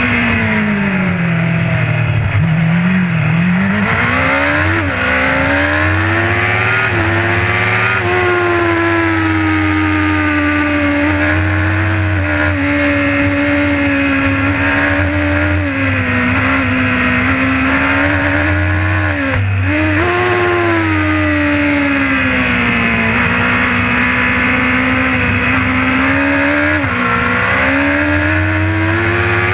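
Racing motorcycle engine heard from onboard, revving hard up and down through the gears. The revs drop steeply under braking in the first few seconds, then climb in steps with short dips at each gear change.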